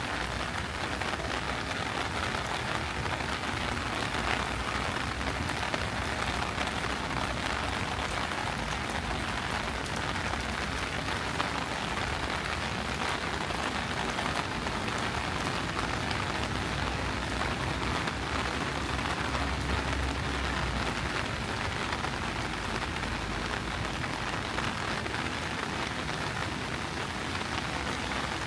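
Steady rain falling on the ground and surfaces around, a dense, even patter of many drops with no let-up.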